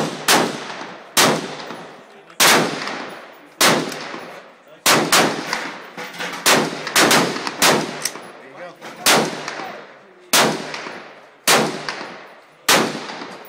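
Stag Arms Model 3 AR-15 rifle firing 5.56 mm rounds in semi-automatic single shots, about fifteen in all, mostly a second or so apart with a few quick doubles and triples, each shot trailing off in an echo.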